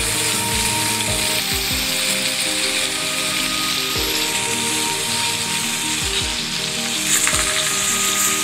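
Boneless ribeye steak sizzling steadily as it sears in hot oil in a pan, with background music underneath.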